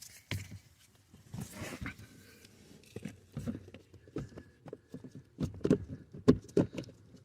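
Scattered clicks and knocks from the filter housing lid being handled and fitted into its slots. The loudest knock comes about six seconds in.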